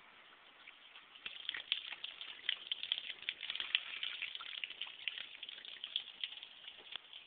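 Rain pattering, a dense scatter of drops ticking on hard surfaces; it picks up about a second in and thins out again near the end.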